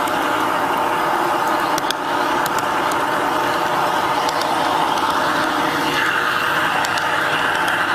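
G-scale model train running along garden railroad track, heard from a camera riding on the train: a steady whirr of the motor drive and wheels on the rails with a constant hum, and a few light clicks.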